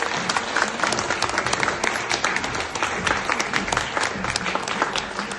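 An audience applauding: many hands clapping densely and steadily.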